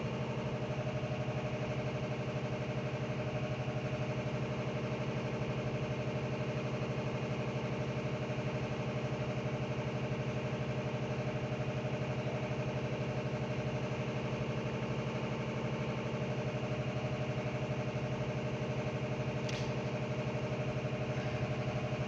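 Steady machine hum, like a motor or engine running at idle, with a fast even pulse and no change in pitch or level; a faint click near the end.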